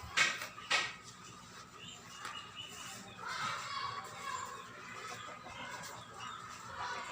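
Chickens clucking, with two sharp knocks in the first second.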